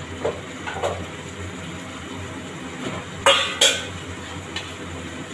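A metal spoon clinking against steel cookware: faint light clinks about a second in, then two sharp, loud clinks in quick succession a little past the middle.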